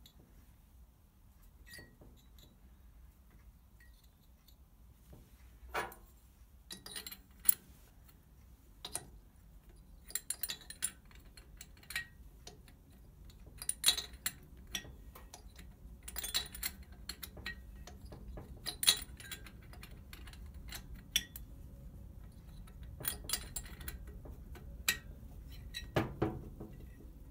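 Hand tools and small metal parts clinking, tapping and knocking against each other in irregular bursts while work is done on an engine. It starts a few seconds in, with a few sharp, louder clinks among the lighter taps.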